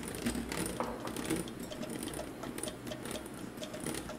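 Bosch electric hand mixer running at low speed, its beaters whisking a cake batter of egg, sugar, yogurt and oil in a glass bowl, with many light ticks.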